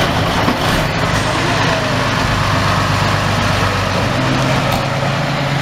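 Vintage heavy diesel truck engine running as the truck pulls slowly past, a steady low drone that grows a little stronger about four seconds in.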